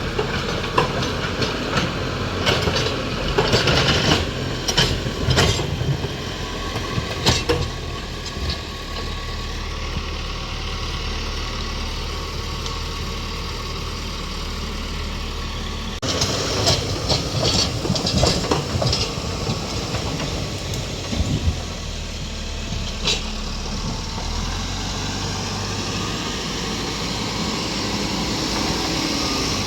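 Tractor engine running steadily, with bursts of clattering knocks in the first several seconds and again from about halfway through.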